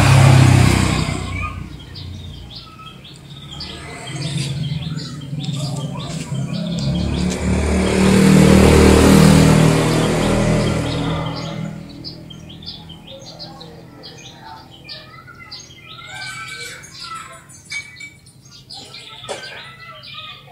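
Passing road traffic: a motor vehicle fades away at the start, and another passes by, swelling to its loudest near the middle and then fading. After that, small birds chirp again and again.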